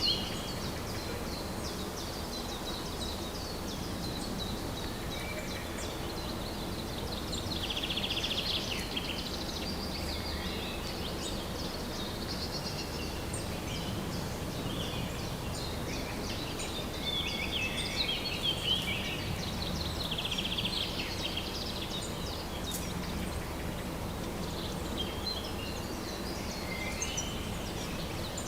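Woodland birdsong: several birds chirping, with bouts of rapid trills, over a steady low background hiss.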